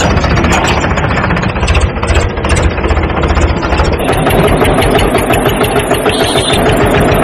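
Engine running with a fast, even chugging. About four seconds in, the sound changes: the low rumble drops away and a higher buzz comes in.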